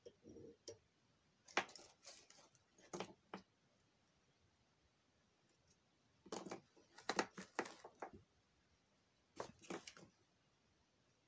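Faint clicking and rattling of small fly-tying tools and materials being handled and set down, in three short clusters: near the start, in the middle and near the end.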